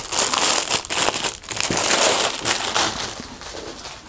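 Clear plastic bag crinkling and crackling as a folded cloth garment is worked out of it, loudest for the first three seconds and then quieter.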